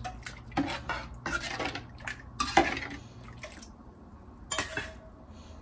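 Metal ladle scraping and knocking against a steel pan while stirring rasam: several short scrapes and knocks, the loudest about two and a half seconds in. A single clink with a brief ring follows about four and a half seconds in.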